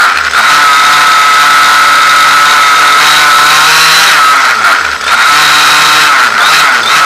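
Two-stroke petrol engine of a Losi 1/5-scale RC car, heard close up from on board, running at high revs with a loud, steady high-pitched buzz. About four and a half seconds in the throttle is let off and the pitch falls, then the engine revs up again. Quick throttle blips follow near the end.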